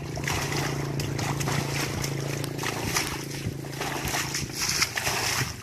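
Muddy water sloshing and splashing as buckets are dipped and emptied in a shallow ditch, over a steady low motor hum that fades out near the end.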